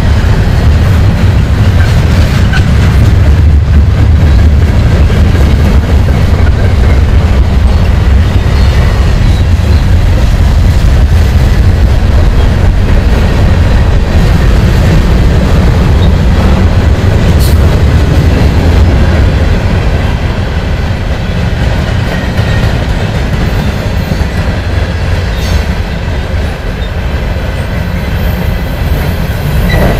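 Freight train cars rolling past close by: a steady heavy rumble with the wheels clacking over rail joints. It eases slightly about two-thirds of the way in, then builds again near the end.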